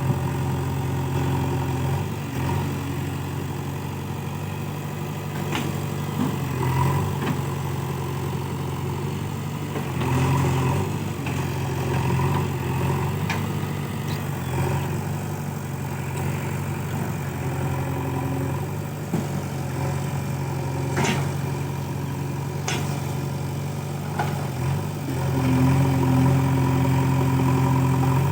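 JCB 3DX backhoe loader's diesel engine running, getting louder for a few seconds at a time as it is worked, with a few short sharp knocks.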